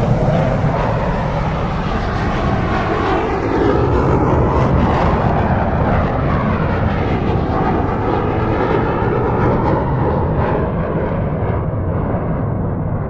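F-22 Raptor's twin Pratt & Whitney F119 turbofan engines in a loud, continuous jet flyby. Sweeping tones rise and fall through the noise as the jet passes, and the hiss thins out over the second half as it draws away.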